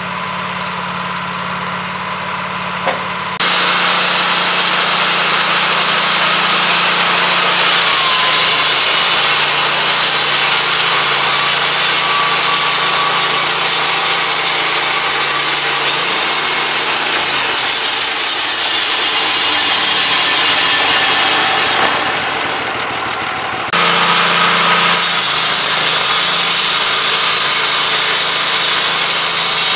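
Woodmizer LT15 Go band sawmill: the engine runs steadily, then about three seconds in the noise jumps suddenly to a loud, steady hiss and whine as the band blade engages and runs. The noise drops briefly about three quarters of the way through, then comes back.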